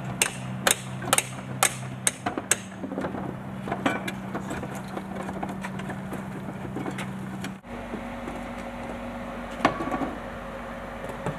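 Hammer blows on a roof during a shingle tear-off: a quick run of sharp strikes, about two a second, in the first few seconds, then scattered knocks over a steady low hum.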